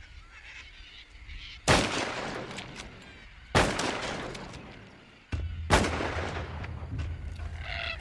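Three high-powered rifle shots about two seconds apart, each followed by a long echo that fades away. Near the end, a flock of cockatoos starts squawking.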